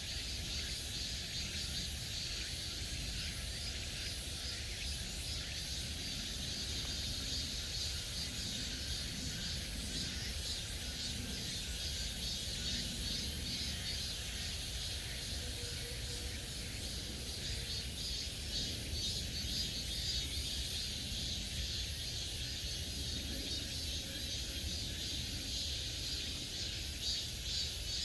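A chorus of cicadas buzzing steadily, a fast-pulsing high drone that never lets up.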